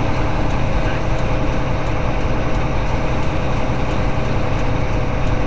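Semi truck engine running with tyre and road noise, heard steadily from inside the cab while driving.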